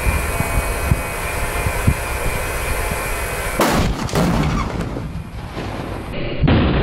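Tannerite exploding into a fireball: one sharp boom about three and a half seconds in, rumbling as it fades. Near the end a second boom begins. Before the first blast there is a steady rushing noise with occasional low thumps.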